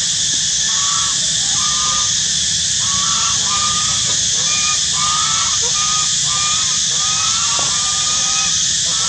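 Domestic geese honking, short calls one or two a second, overlapping, over a steady high-pitched hiss.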